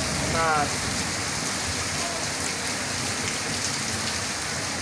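Steady rain falling, an even hiss, with a brief voice about half a second in.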